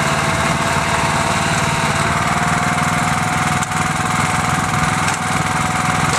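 Merry Tiller garden tiller's small gasoline engine running steadily while the tiller churns through garden soil.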